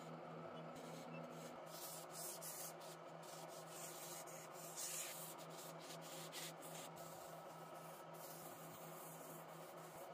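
Sandpaper rubbing against a spinning wooden stair baluster on a wood lathe, a steady hissing scrape with small flickers as the paper moves along the spindle, over the lathe's steady motor hum.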